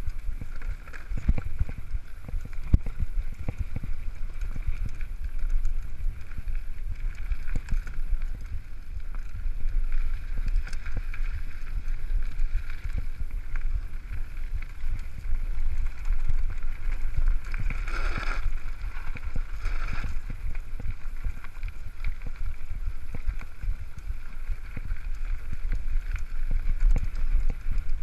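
Wind buffeting a camera microphone over the rumble and knocks of a mountain bike riding a rough, dry dirt trail.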